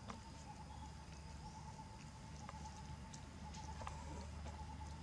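Quiet outdoor background: a steady faint high hum over a low rumble, with a few scattered soft clicks.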